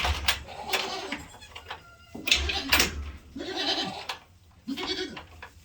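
Goats bleating: about four short bleats spread over a few seconds, with some rustling between them.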